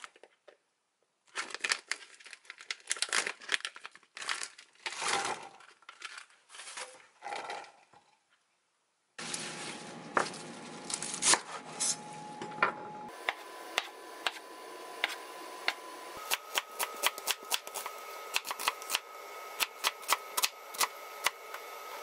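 Crinkling and rustling handling noise for several seconds; then, from about nine seconds in, a kitchen knife chopping spinach and then onion on a wooden cutting board in steady, regular knocks.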